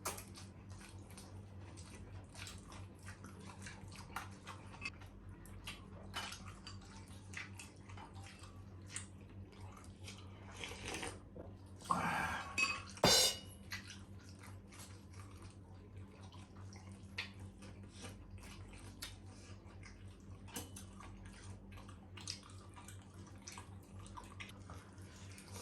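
Cutlery clinking and scraping against plates during a meal, with many small clicks throughout and a louder clatter about twelve seconds in, over a steady low hum.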